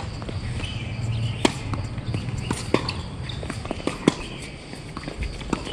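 Tennis balls being struck by rackets and bouncing: sharp pops about a second and a half apart, with fainter knocks between them.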